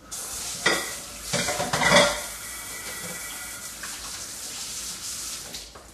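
Kitchen tap running into the sink while hands are washed under it, with a few sharp knocks and clatters in the first two seconds, the loudest about two seconds in. The water shuts off near the end.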